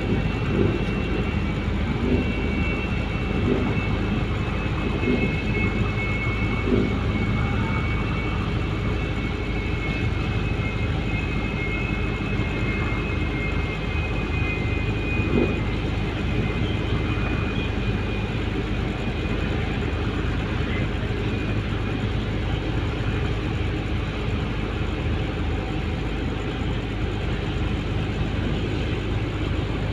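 Fishing boat's inboard engine running steadily under way, a deep even drone with no change in speed.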